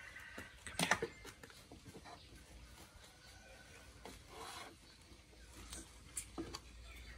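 Crinkling and rustling of a disposable diaper being handled and fastened on a baby monkey, with scattered sharp clicks and taps. The loudest is a cluster of crackles about a second in, with a softer rustle past the middle and a few clicks near the end.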